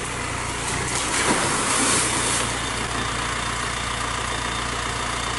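Off-road 4x4's engine running steadily at low revs, with a louder rushing noise from about one to two and a half seconds in.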